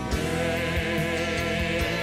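Live praise-and-worship music: voices singing held notes over a band, with a regular drum beat.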